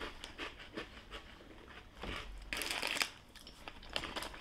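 Quiet chewing of crunchy smoky barbecue snacks: faint scattered crunches, with a short, louder crinkly rustle about two and a half seconds in.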